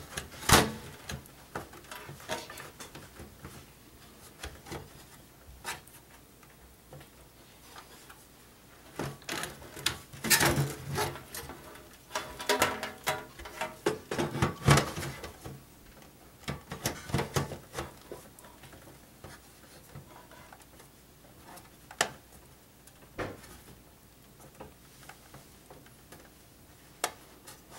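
A Corsair power supply being handled and fitted into a desktop computer case: scattered knocks, clicks and scrapes, busiest in the middle, with a few single sharp clicks near the end.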